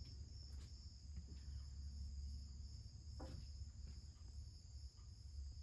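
Faint, steady high-pitched insect trilling, with a low rumble underneath and a soft knock about three seconds in.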